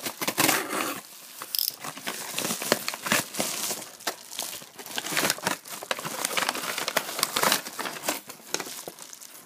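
Yellow padded bubble mailer being cut with a box cutter and torn open by hand, its paper and bubble lining crinkling and rustling in irregular bursts; near the end, a paper packing slip is pulled out rustling.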